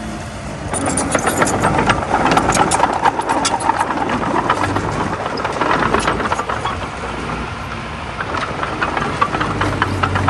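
Komatsu D20A bulldozer working, its engine running under a dense clatter of rapid clanks and rattles that starts about a second in and keeps on to the end.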